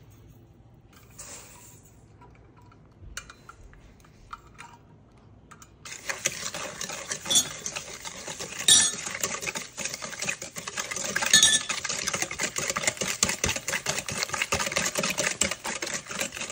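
Wire whisk beating a batter in a stainless steel mixing bowl: fast, continuous clinking and scraping of metal wires against the bowl, starting about six seconds in. Before that, only a few light clicks and a brief soft hiss.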